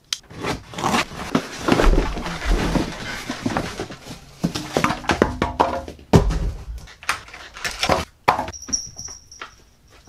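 Unboxing noises: a cardboard box and its foam packing being handled as an oil-filled radiator heater is unpacked, with irregular rustling, scraping and knocks. A pitched sound lasting about a second and a half comes about halfway through.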